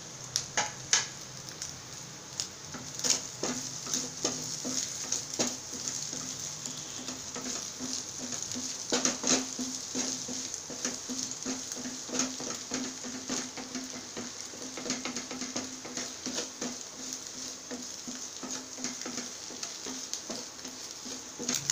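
Crumbled egg frying and sizzling in a steel pan, with a wooden spatula scraping and tapping against the pan over and over as it is stirred.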